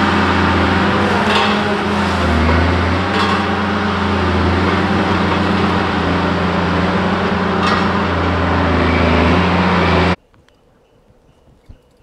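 A vehicle's engine running steadily as it drives on a dirt road, with a few rattles and a brief shift in pitch. About ten seconds in it cuts off abruptly, leaving a quiet background with faint ticks.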